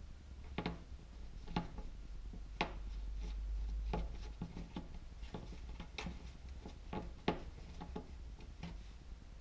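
Hands working a lump of wax-based plastiline modelling clay on a tabletop: about a dozen light, irregular clicks and taps from fingers and clay against the table, with soft rubbing.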